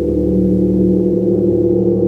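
Gong sounding continuously: a steady, loud wash of layered low tones, with no single strike standing out.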